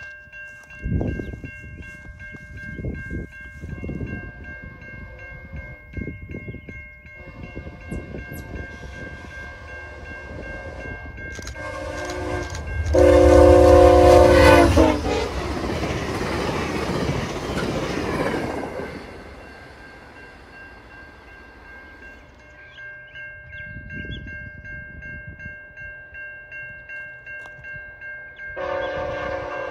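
Grade-crossing bell ringing steadily while a VIA Rail GE P42DC-led passenger train approaches at high speed and blows its horn in a long loud blast about twelve seconds in, followed by the rush of the train going by. Near the end another train's horn sounds.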